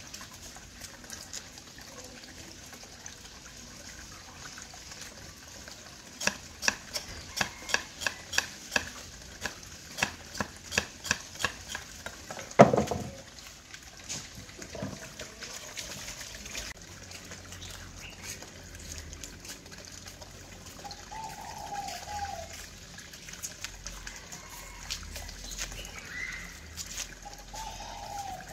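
Knife working fresh cassava roots, with a quick run of sharp taps about two a second ending in one loud knock. Then water from a garden hose runs faintly into a plastic basin.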